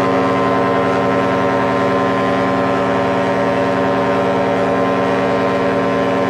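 A ship's horn sounding one long, steady blast.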